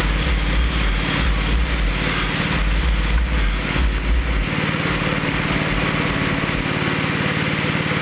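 Small gasoline engine of a wood chipper-shredder running steadily, with a deep rumble underneath that drops away about halfway through.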